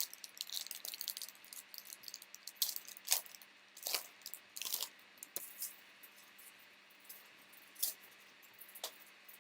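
Trading cards being handled: short sliding scrapes and flicks as cards are pushed across one another, coming thick and fast at first, then more spaced out, with only a couple near the end.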